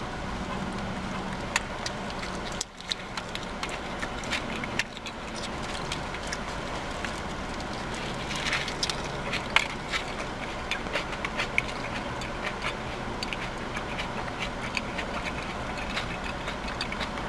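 Eating sounds: chewing and mouth noises with many small clicks and crinkles as a veggie burger is handled and bitten, over a steady low background hum.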